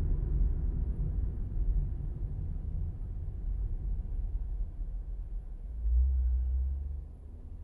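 Low rumble of road and engine noise inside a car as it slows to a stop in traffic. There is a brief louder low swell about six seconds in, and then it drops to a quiet idle hum once the car has stopped.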